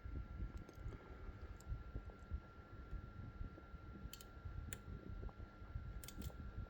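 Faint metallic clicks of a pick and tension wrench working the pins inside a Mul-T-Lock 7x7 cylinder: a handful of sharp ticks at irregular moments. Under them are low handling rumble and a faint steady whine.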